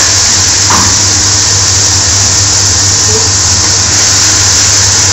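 Loud, steady rushing noise with a low hum from a commercial kitchen's gas range and extraction running. A light knock, the ladle against the pan, comes near the start.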